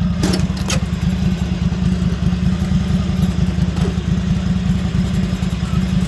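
Lawn mower engine running through a truck exhaust pipe fitted to it: a loud, steady, low, pulsing rumble. A couple of brief clicks come under a second in.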